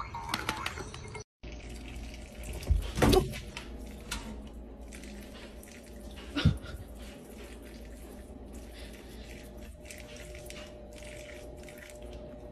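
Kitchen tap running into a sink, a steady splashing hiss, broken by a few loud knocks about three seconds in and one more about six and a half seconds in.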